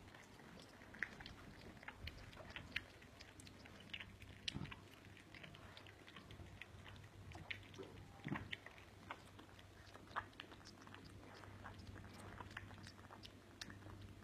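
Faint, irregular small clicks and smacks from pit bull puppies, over a steady low hum.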